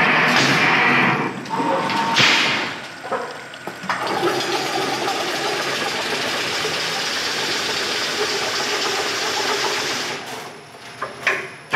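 Motor-driven chain link fence weaving machine running: an electric motor turning the machine through a V-belt and gearbox, giving a steady rushing mechanical noise, with louder surges in the first few seconds.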